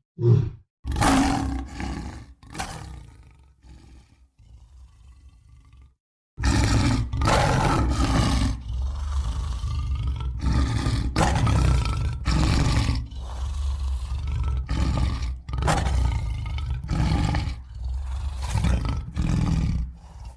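Lion growling and roaring sound effects: a run of growls that fade away, a brief break about six seconds in, then a long stretch of loud growling roars in quick pulses.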